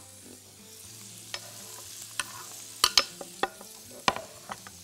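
Chunks of Egyptian beef sausage sizzling in hot oil in a frying pan, with scattered sharp clicks and knocks as chopped garlic is tipped in from a wooden cutting board. The loudest knocks come about three seconds in and again about a second later.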